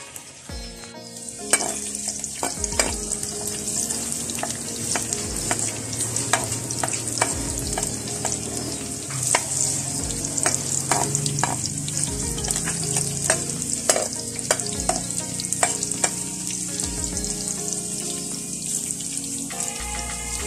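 Garlic cloves frying in hot oil in a wok, a steady sizzle that starts about a second and a half in. A metal ladle stirs them, clinking and scraping against the pan many times.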